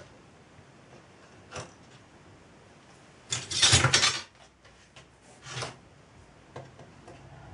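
Small metal hand tools handled on a workbench: a light click, then a clatter of metal on metal lasting about a second, and a second, shorter clatter a moment later.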